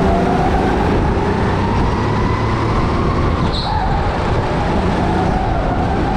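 Go-kart motor running at speed from onboard, its pitch rising and falling with the throttle. About three and a half seconds in, a short high squeak and a drop in pitch as it slows into a corner, then it picks up again.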